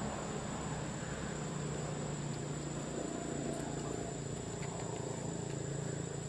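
Steady outdoor background of insects trilling, over a low steady hum.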